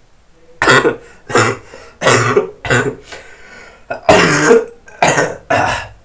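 A man coughing and clearing his throat, about seven harsh coughs in short bunches spread over several seconds.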